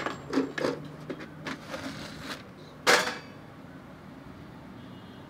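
Clicks and knocks of an old wall clock's case being handled and opened, with one louder knock about three seconds in.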